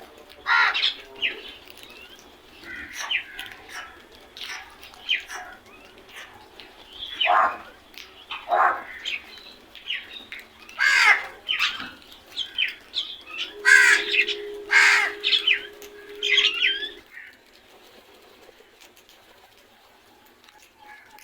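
Crows cawing over and over, many short harsh calls that drop in pitch, which stop about seventeen seconds in. A steady low hum sounds under the calls for a few seconds just before they stop.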